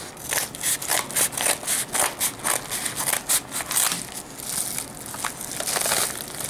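Scissors snipping along the edge of a paper mailing envelope, with the paper crinkling and crackling as it is handled and pulled open: a rapid run of sharp crackles and snips.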